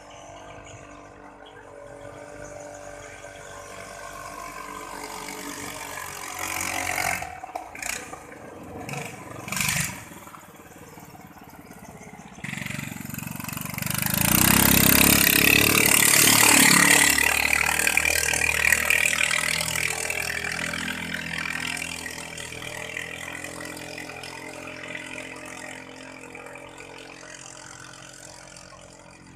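Katinting longtail-boat engine running at speed. It grows louder, is loudest about halfway through, then fades steadily away, with a few short sharp bursts about a quarter of the way in.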